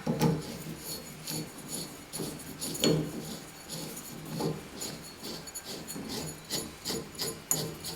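Light metal clinks and scraping rubs as a metal trim piece is fitted onto a shower valve stem, with a sharper knock about three seconds in.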